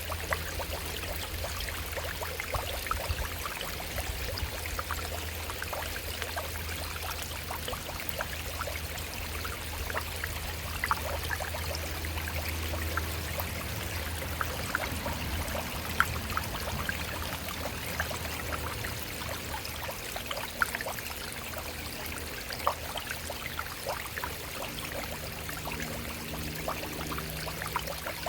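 Shallow stream running over rocks: a steady rush of water with many small splashes and plinks. A low rumble sits under it through the first half, and a faint low hum of a few steady tones comes in near the end.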